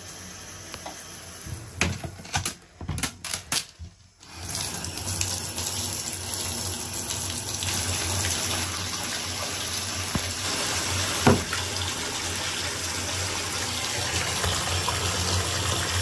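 A few scattered knocks and clicks, then from about four seconds in a bath tap runs steadily, filling the bathtub with a continuous rush of water. There is one sharp knock about eleven seconds in.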